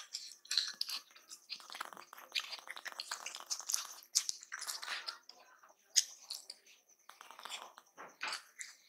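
Close-miked wet chewing and mouth smacking of dal and rice, mixed with squishing as fingers mash and gather the rice on the plate. The sounds come as quick, irregular smacks and squelches.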